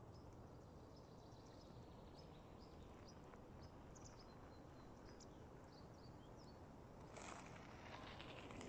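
Faint birds chirping, short high calls scattered over a low, steady background hiss. About seven seconds in, a louder crackling noise comes in and runs on.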